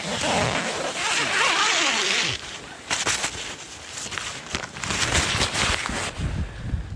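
Tent door zipper pulled open over about two seconds, followed by a string of short rustling and shuffling noises as he climbs out through the doorway.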